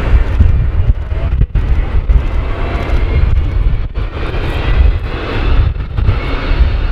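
Airbus A380 jet engines running loudly as the airliner rolls along a wet runway: a deep, unsteady rumble with a fainter high rushing layer above it.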